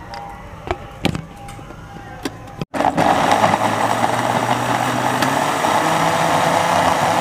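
Electric juicer-blender running, pureeing mango pieces in its glass jug into pulp. Its loud, steady motor noise starts abruptly about two and a half seconds in, after a few light knocks.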